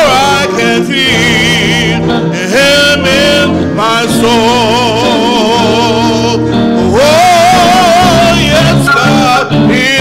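A male gospel singer holding long notes with heavy vibrato, accompanied by electric guitar and keyboard.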